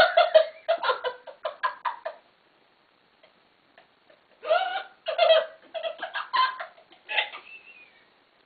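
Girls laughing hard in two fits of choppy, breathless laughter, the second starting about four and a half seconds in: wheezing laughter that leaves them unable to breathe.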